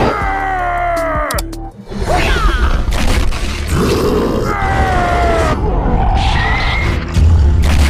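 Action-cartoon fight soundtrack: background music with fight sound effects, including two falling pitched sweeps and a heavy low boom about seven seconds in.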